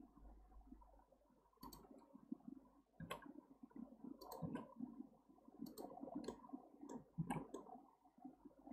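Faint computer keyboard and mouse clicks, about half a dozen scattered irregularly, over low background noise.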